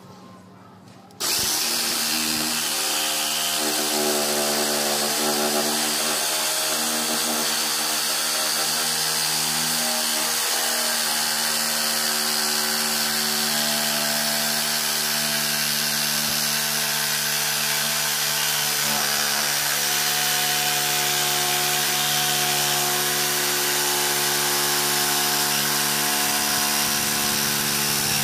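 Electric jigsaw (Vertigo VG-JS-70) starting about a second in and running steadily as its blade saws through the wooden blade of a cricket bat.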